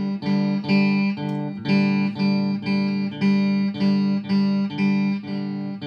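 Guitar music with no voice: a repeating plucked or strummed chord pattern, about two to three chords a second.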